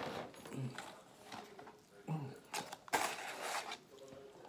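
Eating sounds: chewing and mouth noises while paper food packaging is handled, with a louder rustle lasting about a second from about two and a half seconds in.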